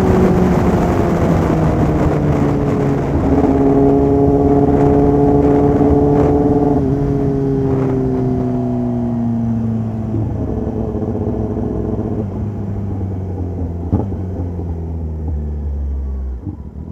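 Kawasaki ZX-10R's inline-four engine running through a full aftermarket exhaust system as the bike slows, its note falling. The pitch jumps up once about three seconds in, then winds steadily down. There is one sharp click near the end, and the engine sound cuts off just before the close.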